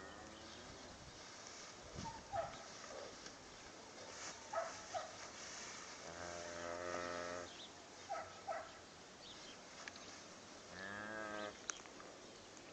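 Cattle mooing twice: a long call about six seconds in and a shorter one near eleven seconds that rises and falls in pitch, with a few short high chirps between.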